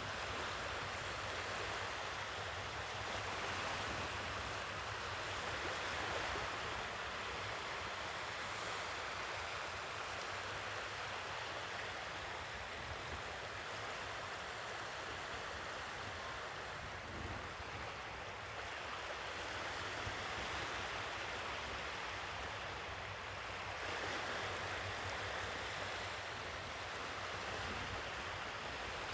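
Sea waves washing on the shore, a continuous hiss of surf that swells and eases gently, with no single break standing out.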